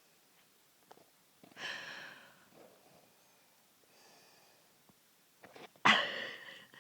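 A sleeping man snoring with two snorting breaths: one about a second and a half in, and a louder, sudden one near the end, with quiet between them.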